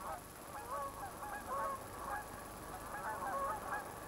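A flock of Canada geese honking, many short calls overlapping one another.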